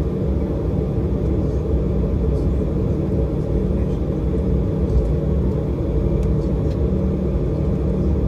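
Cabin noise of an Embraer E190 taxiing, heard from a window seat behind the wing: a steady low rumble from its General Electric CF34 engines and the rolling airframe, with a low steady hum and a few faint ticks.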